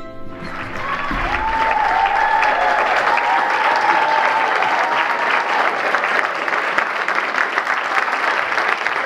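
Large audience applauding, the clapping swelling as a song fades out at the start. A few high drawn-out whoops ring out over the clapping until about halfway through.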